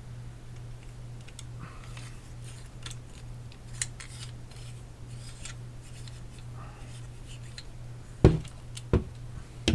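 Small metal rifle parts being handled during an AR-15 folding stock adapter install: light metallic clicks and scrapes, then two sharp knocks near the end. A steady low hum runs underneath.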